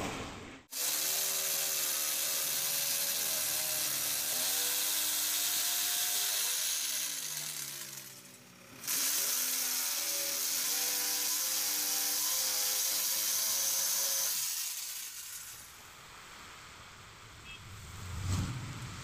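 Hand-held electric jigsaw cutting through wood, its motor pitch wavering as it works through the cut. It stops briefly about eight seconds in, starts again, and stops for good a few seconds before the end.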